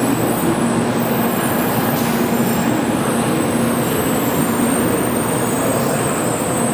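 N700-series Shinkansen train at the platform, giving a steady hum and even rushing noise at a constant level.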